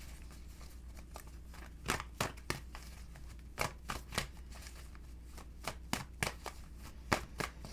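Tarot cards being shuffled and handled: an irregular run of crisp card snaps and flicks, starting about two seconds in, over a faint low hum.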